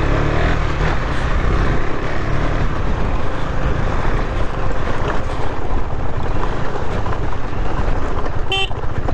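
KTM 390's single-cylinder engine running steadily as the motorcycle rides a gravel track, with wind noise on the helmet-mounted microphone. A short beep sounds near the end.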